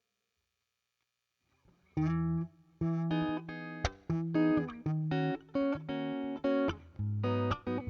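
Electric guitar played through a Zoom G2Four's Fender Deluxe Reverb amp simulation: after about two seconds of silence, short chords and single notes in a choppy, stop-start rhythm, with lower notes coming in near the end.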